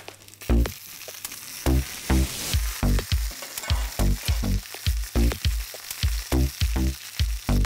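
Lamb ribs sizzling fat-side down in a hot, dry frying pan as cherry tomatoes are tipped in and stirred with a wooden spatula. Background music with short, low repeated notes, several a second, plays over it.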